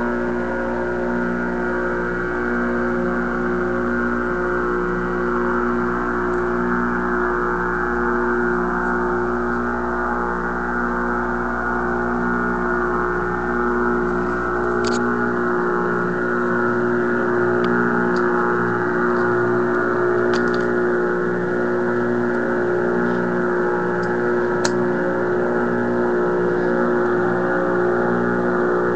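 Shortwave band noise from a 1936 RCA Victor 5T5 five-tube radio: a steady, hypnotic drone of many held tones with hiss. It is broken by a few sharp clicks, the first about halfway through, where a low hum underneath drops away.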